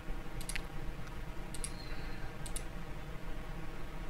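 A few sharp computer mouse and keyboard clicks, some in quick pairs, over a low steady hum.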